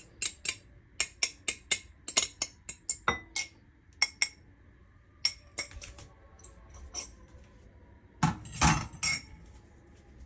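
A metal utensil clinking sharply and repeatedly against a bowl as egg is worked into the tuna mixture: a quick run of clicks over the first few seconds, scattered clicks after, and a denser clatter of scraping near the end.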